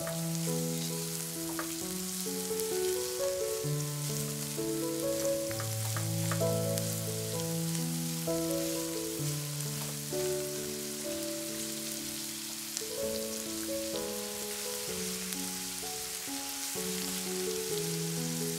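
Food sizzling as it fries in oil in a pan: a steady crackling hiss. Background music with slow, held notes and chords plays over it.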